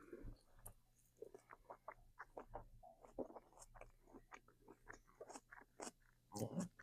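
Faint close-up chewing with the mouth working food: small wet clicks and smacks, a few a second, with a louder cluster of smacks near the end.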